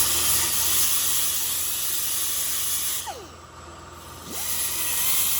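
Electric welder arc-welding onto a broken, rusted cylinder-head bolt to build up something to turn it out by. It runs as a steady crackling hiss in two bursts: a long one that stops about three seconds in, and a shorter one starting after a brief pause. A quieter steady hum continues between them.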